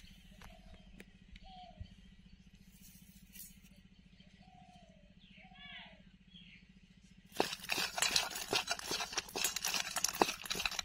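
Hands mixing raw crab pieces with salt and turmeric in a steel bowl: a dense run of shell clicks and crunches against one another and the bowl, starting about seven seconds in. Before that, only a few faint chirps.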